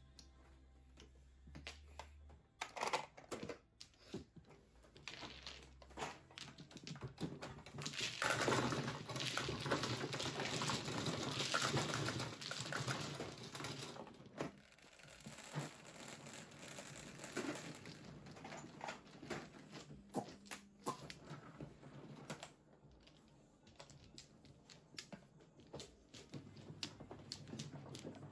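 Mahjong tiles clicking and clattering as players sweep them across the felt of an automatic mahjong table and into its centre opening for machine shuffling, with a dense, loud run of rattling in the middle. Sparser clicks follow as the tiles of the new walls are handled, over a low steady hum from the table near the end.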